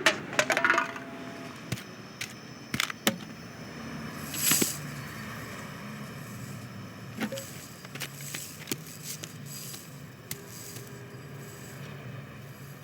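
Animated-film road traffic effects: a steady low traffic rumble with scattered clicks and knocks, and a louder hissing swish about four and a half seconds in.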